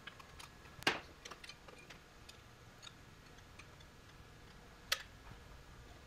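Light metal clicks and clinks of a rocker arm assembly being handled and seated on a Perkins 4.236 diesel cylinder head, with two louder clinks, about a second in and near the end, and a few faint ticks between.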